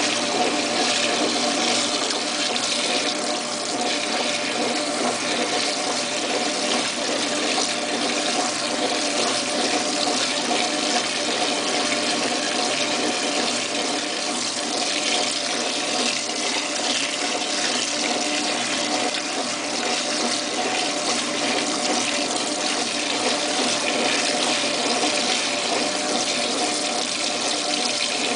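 Washing machine running water in its drum during the wash cycle: a steady rush of water, with a faint even hum underneath.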